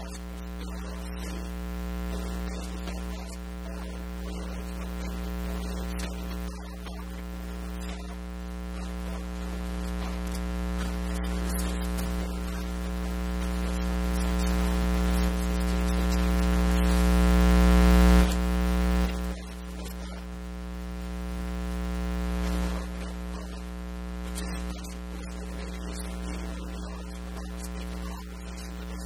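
Steady electrical mains hum with many overtones, no speech. It slowly swells and drops back several times and is loudest about eighteen seconds in.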